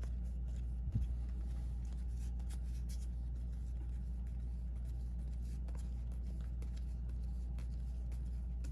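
Baseball trading cards being handled and flipped through, giving faint light ticks and slides, with one small knock about a second in, over a steady low hum.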